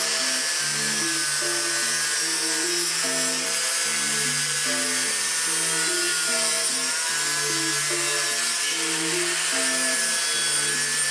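Background music with a repeating melody and bass line, over the high whine and grinding hiss of an angle grinder's cut-off disc cutting through rusty steel angle iron.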